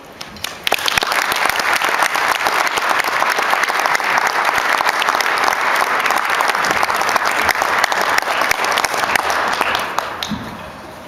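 Audience applauding: a dense patter of many people clapping that starts about a second in, holds steady, and dies away near the end.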